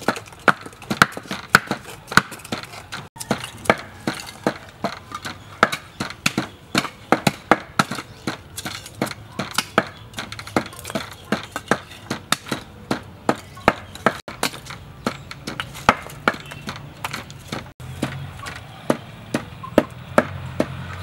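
Repeated sharp wooden knocks, a few a second and unevenly spaced: a wooden pestle pounding in a wooden mortar, mixed with a blade chopping lumps of charcoal.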